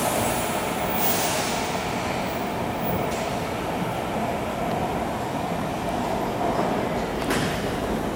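MARTA rapid-transit train pulling out of the underground platform and running off into the tunnel: a steady rumble of wheels on rail with a constant hum under it, and two short hissing bursts, about a second in and near the end.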